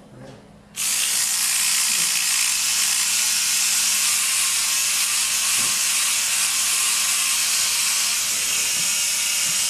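Electric hair trimmer switched on about a second in and running steadily as it clips hair behind the ear, prepping the skin for the ear device.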